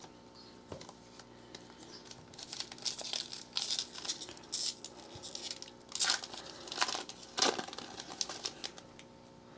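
Foil wrapper of a football trading-card pack crinkling and tearing as it is ripped open by hand. A run of short crackles starts about two seconds in, with the loudest in the last third.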